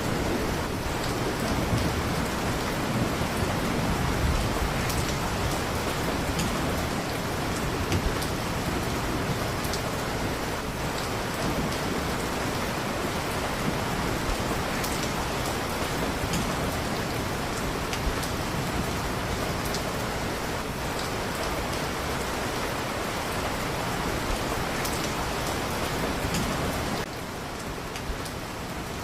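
Steady heavy rain falling, with a low rumble of thunder dying away in the first few seconds. The rain drops somewhat in loudness near the end.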